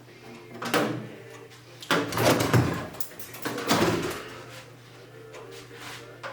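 Microwave oven casing and parts being handled during dismantling: a few scraping, rattling noises, the longest about two seconds in, over a steady low hum.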